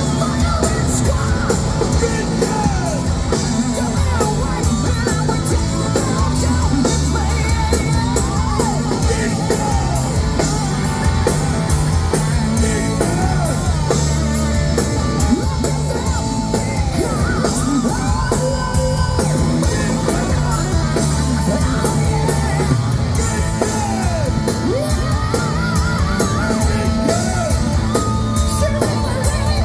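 Hard rock band playing live: electric guitars, bass and drums with a male lead vocal, heard as a loud, continuous full-band mix.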